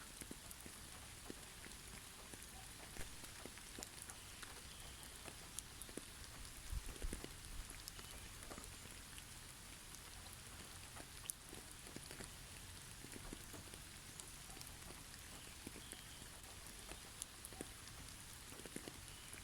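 Soft, steady hiss of rain-like falling water, scattered with light ticks of single drops landing. There is a brief low thump about seven seconds in.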